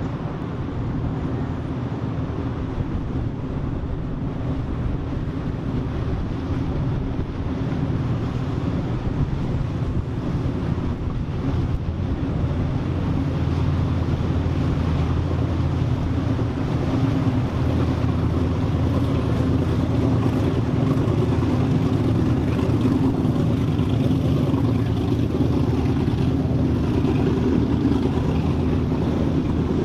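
Boat engines running: a steady low drone that grows gradually louder around the middle.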